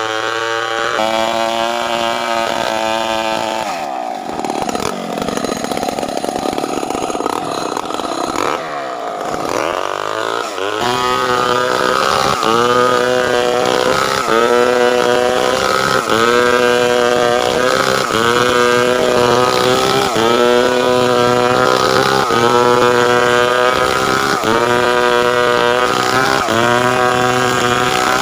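Chainsaw engine running under load while cutting timber into boards, its note wavering in a regular pattern about once a second, with a rougher, noisier stretch in the first third.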